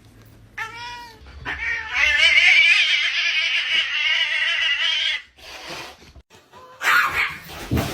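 A domestic cat yowling: a short meow, then one long, loud, wavering yowl of about four seconds, and a brief weaker call after it.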